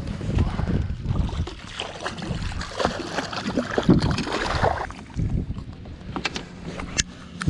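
Wind gusting over the microphone on an open fishing boat, with water sloshing against the hull and a few light clicks near the end.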